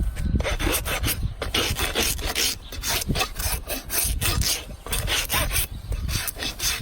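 A hoof rasp filing down a donkey's hoof in quick, repeated scraping strokes.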